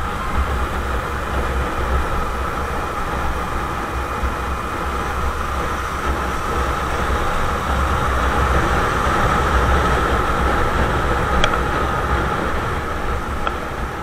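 Motorcycle riding noise: wind rushing over the mounted camera with a deep buffeting rumble, and the engine running steadily as the bike rides along. The noise swells slightly about two-thirds of the way through, and two sharp clicks come near the end.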